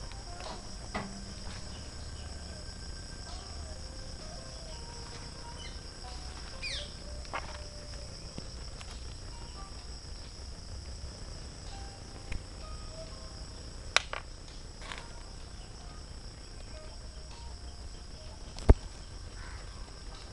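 A steady, high-pitched chorus of insects droning on several pitches at once, over a low rumble. Two sharp clicks stand out, one about two-thirds through and a louder one near the end.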